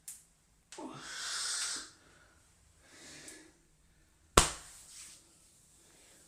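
Head massage sounds: a breathy hiss lasting about a second, a fainter one a couple of seconds later, then a single sharp slap or crack that is the loudest sound.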